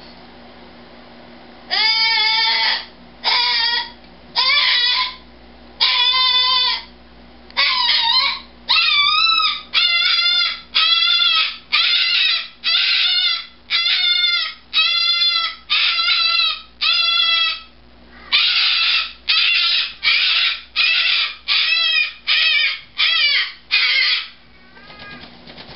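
Umbrella cockatoo screaming: more than twenty loud, harsh screams in a row, each under a second long and about a second apart, starting about two seconds in, with fainter calls near the end. Attention screaming that the owner puts down to the bird being offended at not getting its nightly goodnight.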